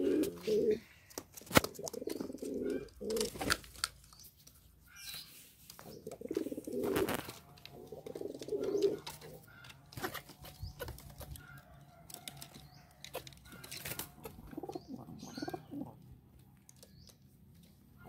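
Domestic pigeons cooing in several low rounds, with a few sharp taps and brief wing flapping in between.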